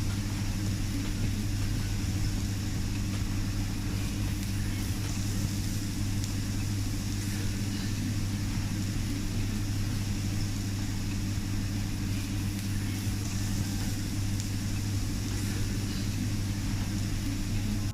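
Steady low mechanical hum under a continuous hiss, typical of a teppanyaki grill's extraction hood running, with a few faint ticks.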